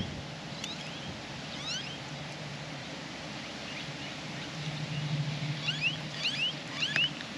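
Small birds chirping: several clusters of short, quick rising notes, busiest in the last couple of seconds, over a low steady hum.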